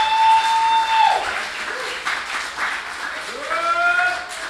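Audience applauding, with two long high-pitched cheers or whoops over the clapping: one lasting about a second at the start, another starting about three seconds in.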